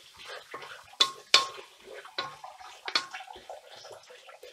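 A utensil stirring chicken pieces around a large steel pot, scraping along the pot and knocking against it in a few sharp clinks.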